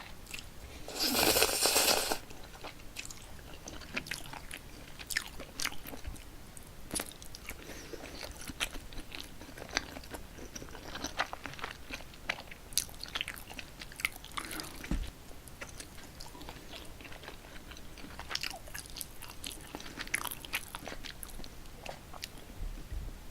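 Close-miked eating of cold spicy Korean bibim noodles: a steady run of small wet clicks and chewing. About a second in there is one longer, louder rush of sound.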